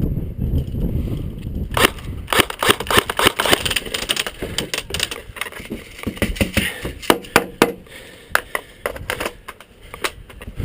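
Airsoft gunfire: quick runs of sharp clicks and snaps in irregular clusters, starting about two seconds in after a low rumble of movement.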